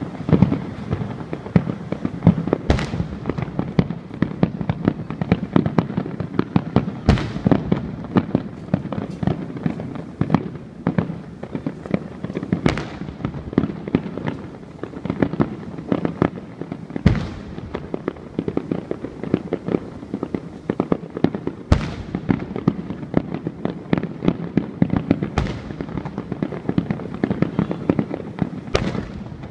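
Fireworks display: a dense, continuous crackle of small bursts, with about seven loud shell bursts about four to five seconds apart, each trailing off in an echo.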